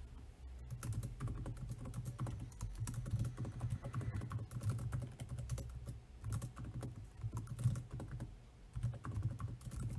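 Typing on a computer keyboard: quick runs of keystrokes, each a click with a dull thud under it, with a couple of brief pauses.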